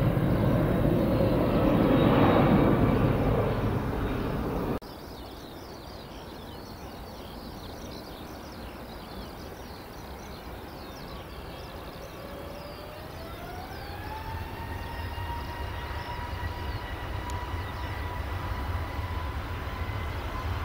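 Airbus A321neo jet engines running: a loud rumble for the first few seconds, then a sudden drop to a quieter steady rumble. Over about two seconds past the middle, a whine rises in pitch and then holds steady as the engines spool up.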